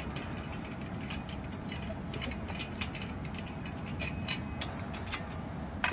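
Hand ratchet clicking irregularly as a lug nut is unscrewed from a car's alloy wheel.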